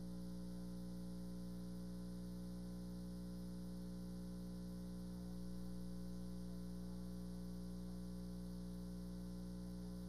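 Steady electrical mains hum: a constant low buzz with evenly spaced overtones, unchanging throughout, with nothing else heard.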